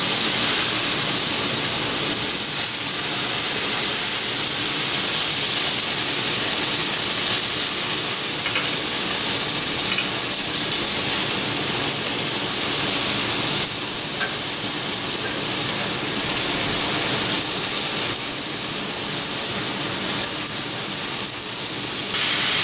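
Bone-in pork chops sizzling steadily as they sear on a hot griddle plate over gas burners.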